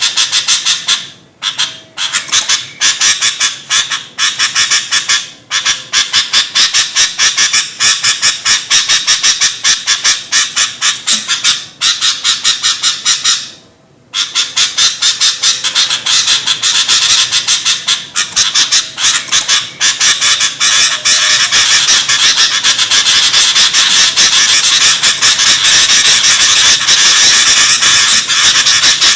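Sooty-headed bulbuls (kutilang) chattering noisily in a dense, rapid run of harsh calls. It breaks off briefly a few times in the first half, with one longer pause about halfway, then runs on without a break.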